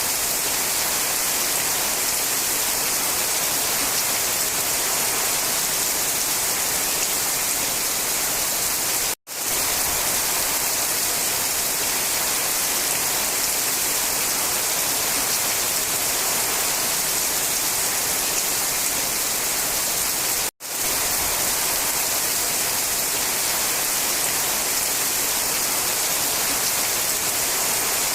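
Steady rain falling in a forest, an even hiss of many drops, cut to silence for an instant twice, about nine and twenty seconds in.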